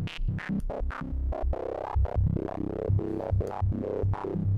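Serum software synth playing a low, detuned sawtooth patch through a resonant band-pass filter and drive, its filter cutoff jumping randomly in sixteenth-note steps under a sample-and-hold Chaos modulator. The held note keeps sounding while its brightness snaps up and down many times a second in an irregular, choppy pattern.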